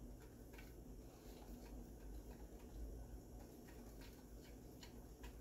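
Faint, uneven clicking of a whisk against a glass measuring cup while a thin liquid is whisked, about two clicks a second.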